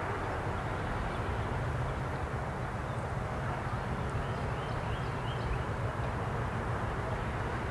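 Southern Railway EMD E8A diesel locomotive running steadily as it pulls its passenger train slowly along, a low, even engine rumble.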